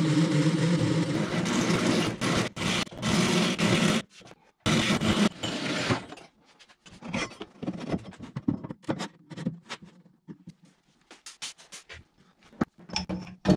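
TIG welding arc buzzing with a steady hum for about four seconds, then after a short break a second burst of similar noise. It is followed by scattered light clicks and knocks.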